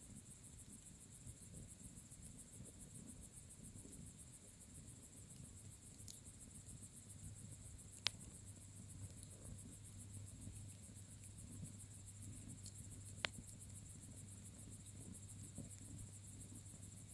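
Bonfire burning quietly: a soft low rumble from the flames, broken by two sharp pops about eight and thirteen seconds in, over a steady high, fast-pulsing chirr.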